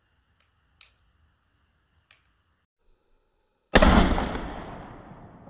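A single shotgun shot about three and a half seconds in, fired with a fireball load: a sharp blast that rings out and fades over nearly two seconds. A few faint clicks come before it.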